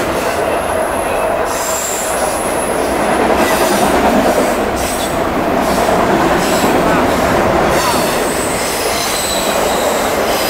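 Freight train of autorack cars rolling past, a steady rumble and rattle of wheels on the rails with high-pitched wheel squeal that comes and goes.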